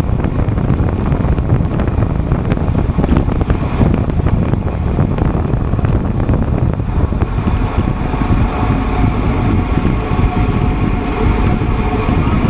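Wind rushing over the microphone of a camera riding on a racing bicycle at speed, a loud, dense, steady rumble. Faint steady tones join it from about eight seconds in.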